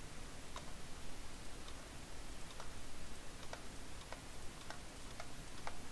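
About a dozen light, irregularly spaced clicks of a computer mouse and keyboard, over a faint steady hiss.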